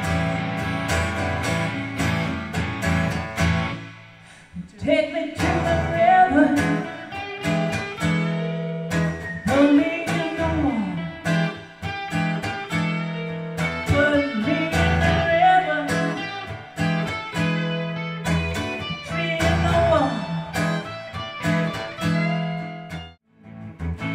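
Two guitars, acoustic-electric and semi-hollow electric, playing a blues-rock jam: strummed chords under a melody line that bends up and down in pitch. The playing drops away briefly about four seconds in and again just before the end.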